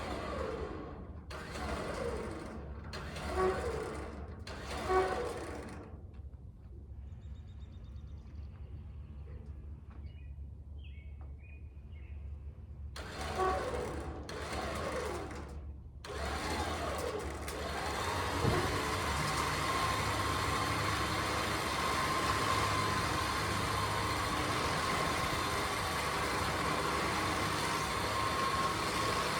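Ford Thunderbird engine being cranked by the starter in several short bursts, then catching about halfway through and running steadily.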